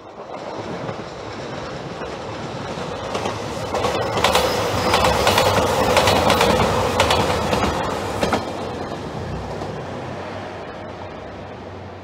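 JR Shikoku 2700 series diesel limited express, three cars, passing close by. The rumble of engines and wheels builds, peaks with a quick run of clickety-clack wheel clicks over rail joints, then fades as the train goes away.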